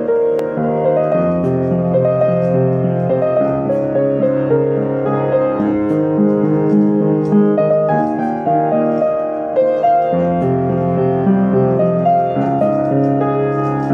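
Upright piano played with both hands: held low chords that change every second or two under a melody line, notes ringing on with the sustain.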